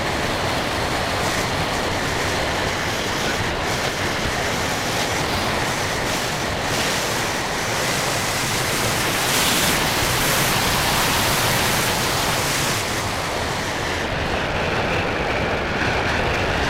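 Wind buffeting the microphone: a steady rushing noise that swells slightly in the middle.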